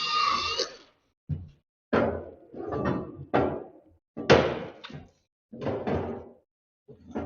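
Irregular knocks and clunks, about eight of them, each sharp at the start and dying away within half a second: metal tubing and tools being handled and set down on a shop bench.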